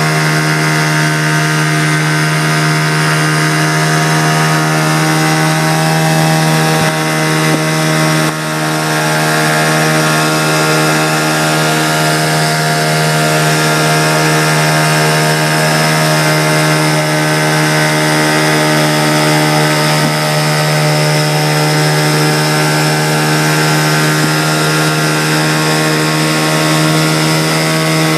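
Engine of a motorised raft running steadily at one constant pitch, loud and close, with a brief dip in level about eight seconds in.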